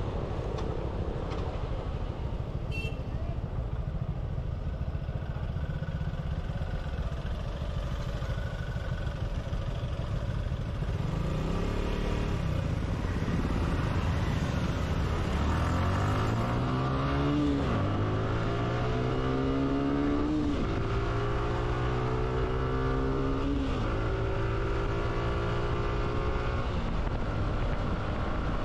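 Motorcycle engine accelerating through the gears over steady wind and road rumble: from about halfway through its pitch climbs, drops sharply at each of three upshifts, then holds steady.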